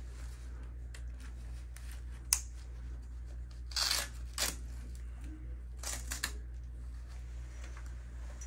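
Straps of a VQ OA Unloader knee brace being pulled and fastened at the calf: a sharp click about two seconds in, then a few short scratchy sounds of strap being drawn through and pressed down. A steady low hum runs underneath.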